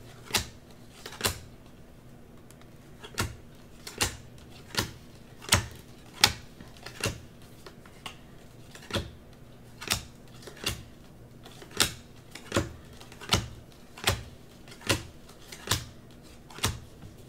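Football trading cards being flicked one at a time from a hand-held stack as each is shown, a sharp snap of card stock roughly every three-quarters of a second.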